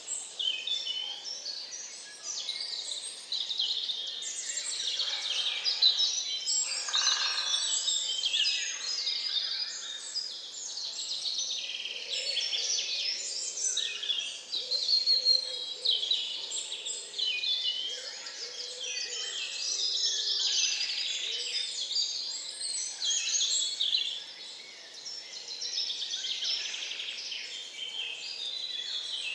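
Dawn chorus in a swamp forest: many birds singing at once in a dense, overlapping mix of high chirps, trills and whistles, with a few lower calls mixed in partway through.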